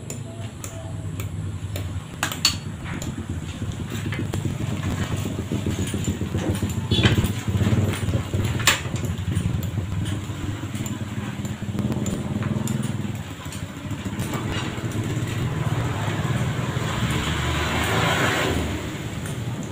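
Road traffic running past, a truck and then a motorcycle, whose noise swells near the end. Over it come a few sharp metal clanks as a steel bar is levered in a hand-operated bending jig.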